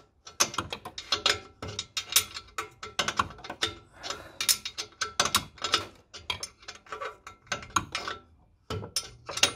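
Ratchet wrench clicking in quick, irregular runs as a bolt is worked under the car, with a brief pause near the end.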